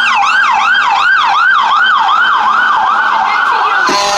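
Fire truck's electronic siren on a fast yelp, sweeping up and down about three times a second. Near the end the yelp gives way to a steady, buzzy tone.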